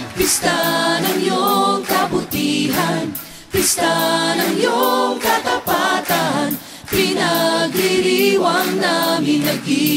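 Background music: a Tagalog Christian worship song, with several voices singing together over little accompaniment and no bass.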